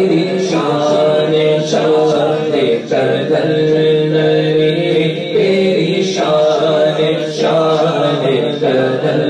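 A male voice singing an Urdu devotional manqabat in long held, ornamented notes, over a steady background drone.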